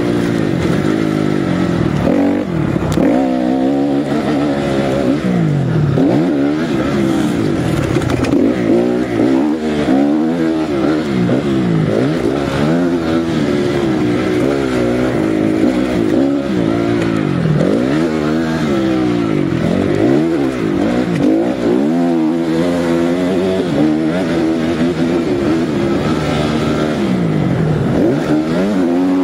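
Honda CRF250R single-cylinder four-stroke motocross engine under hard riding, the throttle opened and shut again and again so the engine note climbs and drops every second or two.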